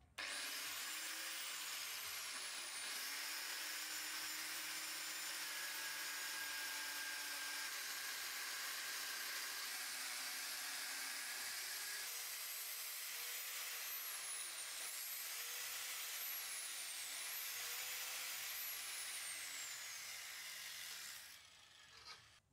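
Angle grinder with an abrasive cut-off disc, mounted in a chop-saw stand, cutting through steel: a steady high whine over a grinding hiss. Its pitch sinks and recovers several times as the disc is worked through the cut, and the sound dies away near the end.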